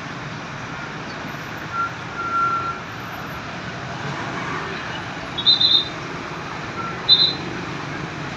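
Steady roadside traffic noise. A thin high tone sounds about two seconds in. Short high-pitched blips come three in quick succession a little past five seconds and once more about seven seconds in.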